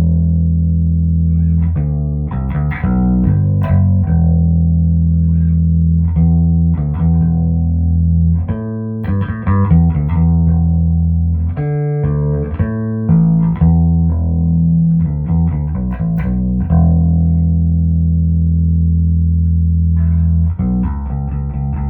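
Electric bass guitar with Seymour Duncan Quarter Pound J pickups, played through a Trace Elliot 12T bass amp into a 1518T speaker cabinet, with pre-shape and compression on and no effects. Basic lines: long sustained low notes broken by quicker runs of notes, one long held note in the later part, and a new figure starting near the end.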